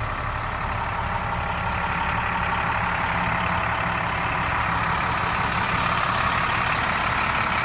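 International DT466 inline-six diesel of a 2007 International 4400 dump truck idling steadily, heard from inside the cab.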